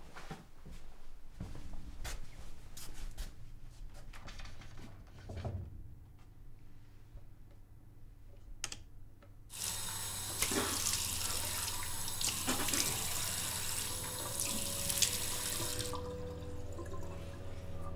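A water tap running into a small washbasin. The water comes on about halfway through as an even rushing hiss and cuts off suddenly near the end.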